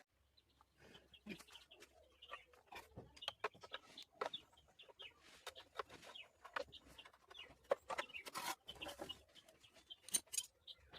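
Chickens clucking, mixed with scattered short clicks and knocks at irregular intervals.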